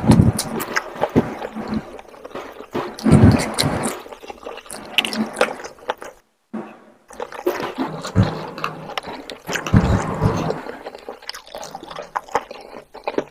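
Close-up wet chewing and lip-smacking of a mouthful of rice and chicken curry in gravy, in irregular squelchy bursts. There is a brief dropout of all sound about six seconds in.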